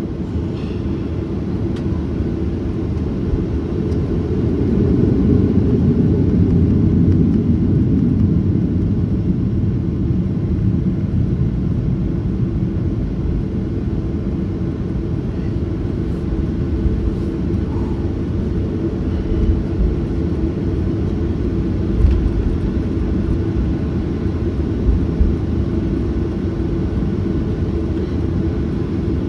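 Cabin noise of a Boeing 737-800 heard from a window seat: a steady jet-engine and airframe rumble that swells about four seconds in and then holds. Two short thumps come near the end.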